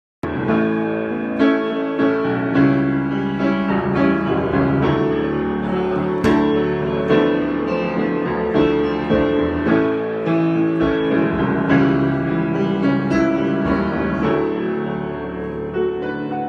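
Solo piano improvisation: sustained chords under single notes struck about once a second, easing off in loudness near the end.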